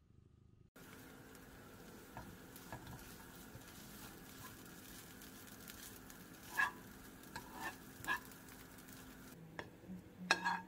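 Rolled oats stir-frying with soy sauce and sesame oil in a nonstick frying pan: a steady sizzle with a spoon scraping and tapping against the pan. Near the end the sizzle drops away as the pan is tipped, and the spoon scrapes the oats out into a bowl with several sharp scrapes.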